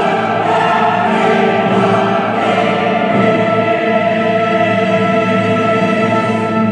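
Dramatic choral music: a choir singing long held chords over orchestral backing.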